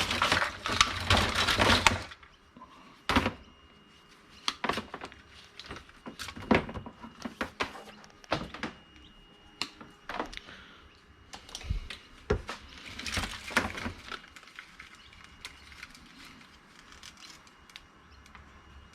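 Scrap electrical cords and small items being handled and sorted: a dense rattle in the first two seconds, then scattered knocks, clunks and rustles, with another spell of rattling about two thirds of the way through.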